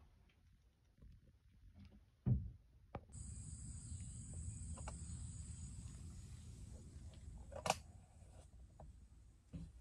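Faint knock in a quiet cabin about two seconds in, then outdoor ambience: a steady high-pitched insect drone over a low wind rumble on the microphone, with a sharp click near the end.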